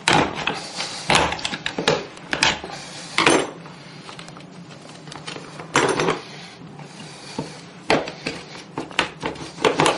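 Metal hand tools clinking, knocking and scraping against a toilet closet bolt and flange as the bolt is worked free of the old flooring. About a dozen irregular sharp knocks, the loudest about a second in and near six seconds.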